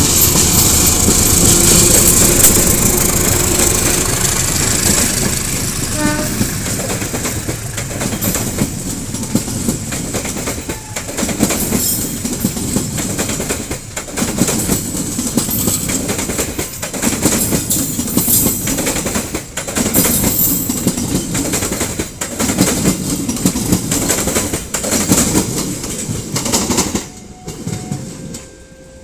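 Passenger train passing close by: the diesel locomotive is loudest in the first few seconds, then the coaches roll past with a clickety-clack of wheels on the rails, swelling and dipping about every three seconds as each car goes by. The sound drops off suddenly near the end.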